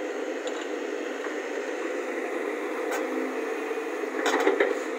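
JCB JS140 tracked excavator running steadily as its arm works, with a short burst of knocks and scraping as the bucket digs into the soil about four seconds in.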